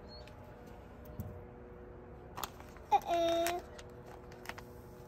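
Light clicks and taps from handling a sand-art bottle and funnel over a faint steady hum, with one short held vocal note about three seconds in.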